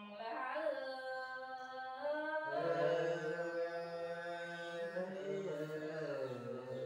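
Unaccompanied folk singing (khắp): a voice drawing out long, slowly gliding notes. The line steps down to a lower pitch about two and a half seconds in and sinks lower again near the end.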